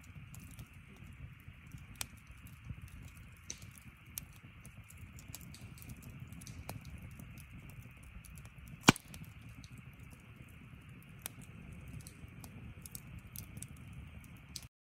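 Wood fire burning in a metal fire grill, crackling with scattered small pops and one loud snap about nine seconds in, over a low steady rumble.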